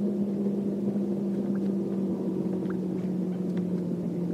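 Electric trolling motor of a bass boat humming steadily, its pitch sinking slightly as it slows. A few faint ticks are heard.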